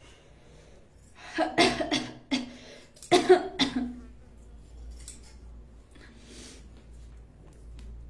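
A woman coughing in two short fits, about one and a half and three seconds in, each made of a few quick coughs.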